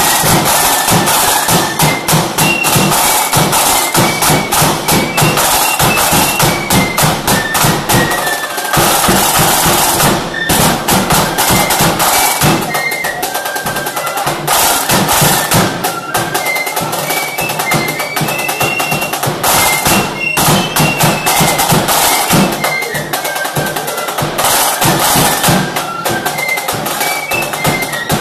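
A flute band playing a march: rapid snare drum strokes and rolls with a bass drum beat under a high stepping flute melody.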